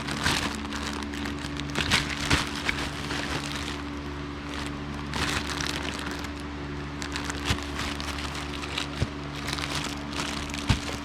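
Plastic bags of wiring harnesses crinkling and crackling irregularly as they are handled, over a steady low hum.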